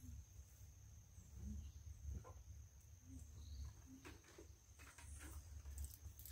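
Quiet rural outdoor ambience: insects giving a steady high-pitched drone over a low rumble, with a few faint knocks.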